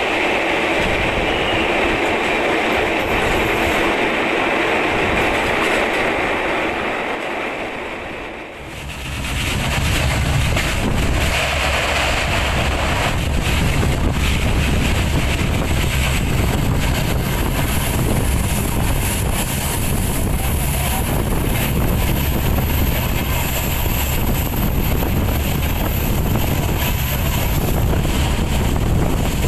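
Moving passenger train heard from an open coach window: a steady noise in a tunnel for the first eight seconds or so, then, after a short dip, the train's low running rumble with wind buffeting the microphone.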